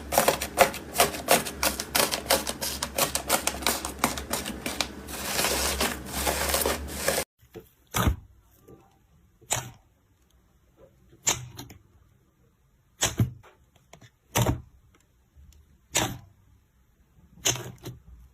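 Slime being handled: a rapid run of sharp clicking and crackling pops, then, after a sudden cut about seven seconds in, single pops about every one and a half seconds.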